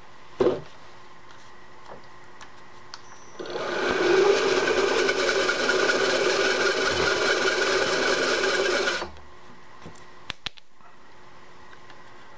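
Vertical milling machine's boring head cutting a bore in an aluminium block: after a click, the spindle runs and the cutter scrapes through the metal with a loud, rasping, ringing sound for about five seconds, stopping abruptly. The cutter is rubbing, which the machinist puts down to the blade being set over too far.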